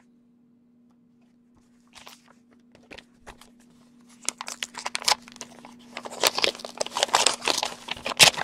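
Paper and envelope rustling and crinkling as they are handled and unwrapped by hand, starting faintly about two seconds in and growing busier and louder in the second half. A faint steady hum runs underneath.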